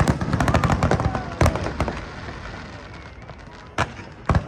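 Fireworks going off: a dense crackle at first, then single sharp bangs, one about a second and a half in and two close together near the end.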